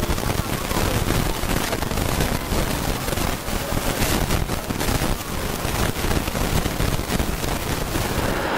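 Wind buffeting the microphone over steady outdoor street noise, a dense rushing roar with no clear voice standing out.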